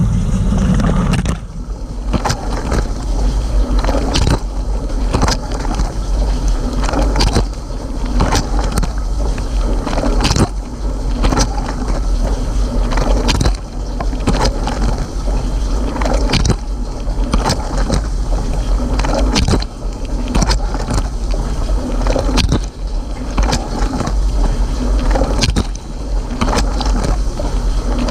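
Water spraying and splashing inside a Cylinda dishwasher during its rinse cycle, over the machine's steady low pump hum. Frequent sharp splashes strike the camera's housing. About a second and a half in, a lower droning part of the sound drops away.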